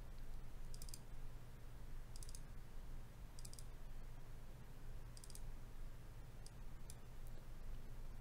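Computer mouse clicking: quick double-clicks every second or so, then a few single clicks near the end, over a faint steady low hum.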